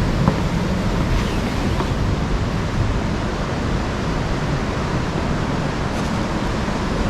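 Waterfall water rushing and splashing in a steady, even roar of noise.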